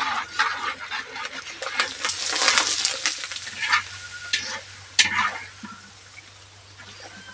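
Macaroni chicharon frying in hot oil in a wok, crackling and sizzling while a metal spatula stirs and scrapes the pan. There is a sharp knock about five seconds in, and the crackle thins out near the end as a wire skimmer lifts the puffed pieces out.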